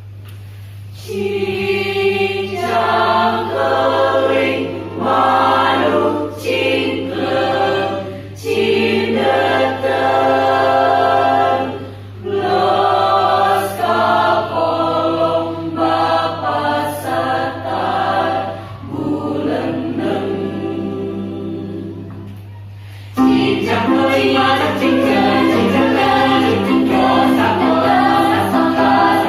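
High school choir singing in parts, phrase after phrase, over a steady low hum. About 23 seconds in, after a short dip, the singing comes back fuller and louder.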